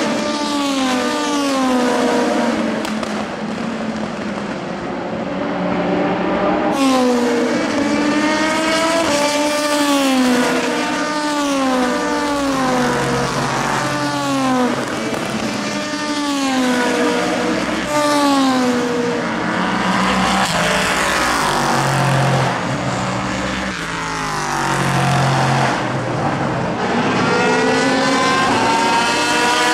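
Endurance race cars (LMP2 prototypes and a GTE car) driving past on a wet circuit, engines revving up and dropping in pitch again and again as they shift gears and go by, with several cars overlapping.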